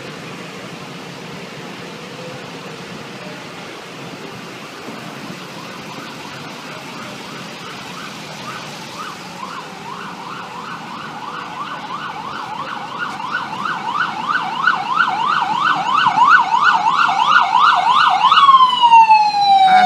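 Ambulance's electronic siren in fast yelp mode, about three sweeps a second, approaching and growing louder over the second half. Near the end it breaks into one long downward sweep in pitch and stops.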